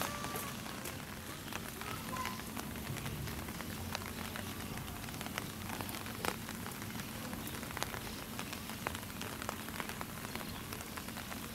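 Steady rain falling, with scattered sharp drips ticking on surfaces.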